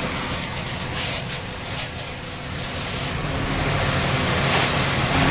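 High-pressure water spray hissing from a power-washer wand as it flushes out an underground transformer vault, the hiss swelling and easing. A truck engine runs steadily underneath.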